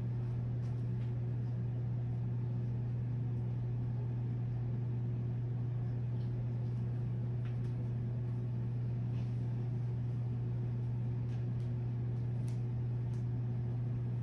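A steady low hum, even in level throughout, with a few faint soft clicks.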